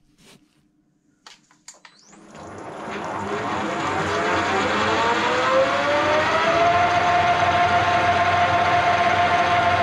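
Pratt & Whitney metal lathe starting up: a few clicks, then the motor and spindle spin up with a whine that rises in pitch for several seconds as the chuck comes up to speed, then settles into a steady whine.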